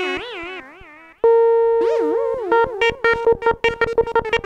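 littleBits Korg Synth Kit oscillator played from its keyboard module through the analog delay module: a held synth note whose echoes warble up and down in pitch. About a second in a higher note starts, and it breaks into a fast pulsing of repeated notes.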